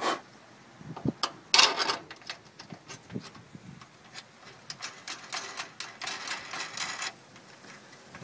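Small metal clicks and rubbing as fingers thread a nut onto a car hood pin's threaded stud, with a louder rustling scrape about one and a half seconds in and a run of quick light clicks later on.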